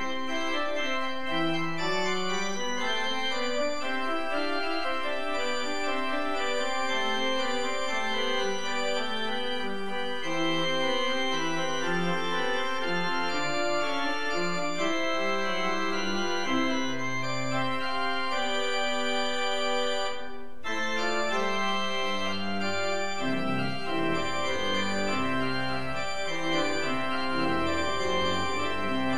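Two-manual church organ playing a piece in full, sustained chords over a moving bass line. The sound breaks off briefly about twenty seconds in, then the chords go on.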